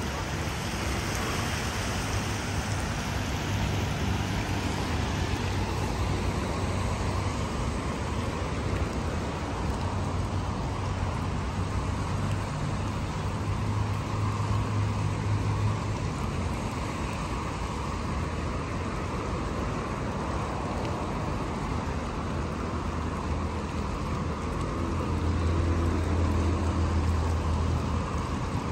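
Road traffic in the rain: a steady hiss with the low drone of passing vehicle engines, swelling around the middle and again near the end.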